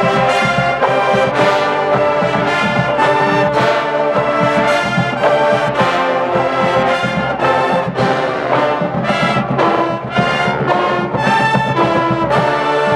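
Marching band brass section, trumpets and trombones, playing a loud chorded tune that moves from note to note in a steady rhythm.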